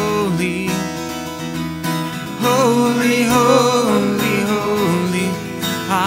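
Acoustic guitar strummed, with a man's voice singing a worship song melody over it, the voice rising in after about two seconds.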